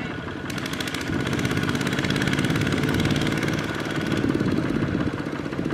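Kubota RT155 two-wheel tractor's single-cylinder diesel engine running with a fast, even firing beat. It works harder and louder from about a second in as the stuck tractor's wheels churn in deep mud.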